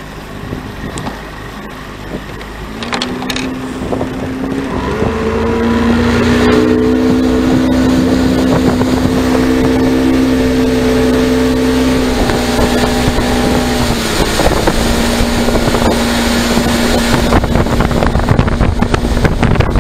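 Boat motor running under way at a steady pitch, getting louder over the first few seconds, with wind buffeting the microphone, heavier near the end.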